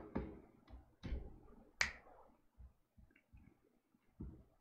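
A few soft, scattered clicks and faint breath-like sounds in a quiet room, with one sharper, brighter click a little under two seconds in.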